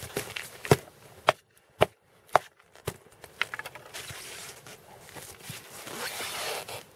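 A series of five sharp knocks, about one every half second. From about three and a half seconds in comes a stretch of scraping and rustling that grows louder toward the end.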